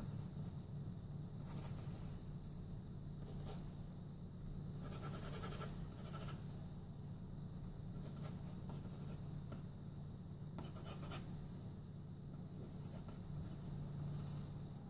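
Graphite pencil scratching on paper in groups of quick sketching strokes, the longest run lasting about a second near the middle.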